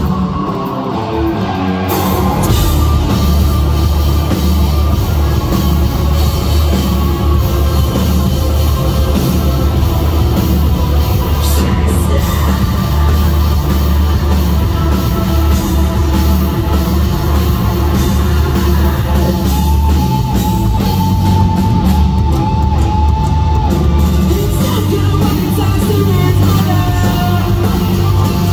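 Rock band playing live through a PA, with distorted guitars, bass, drums and sung vocals. The band thins out briefly at the start, then comes back in at full weight about two seconds in.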